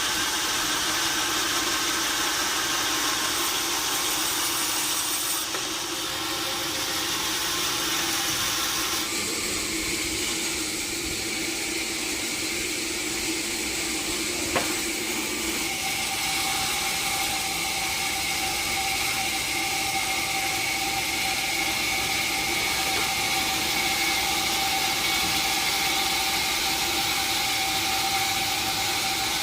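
Sawmill machinery running steadily, a constant mechanical hum and hiss. There is a single sharp click about halfway through, and then the running tone shifts to a higher pitch.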